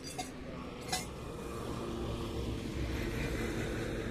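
A vehicle engine running steadily at low revs, a low rumble, with a single sharp click about a second in.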